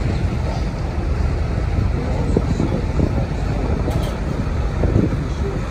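River cruise boat under way: a steady low rumble of its engine mixed with water rushing along the hull and wind buffeting the microphone.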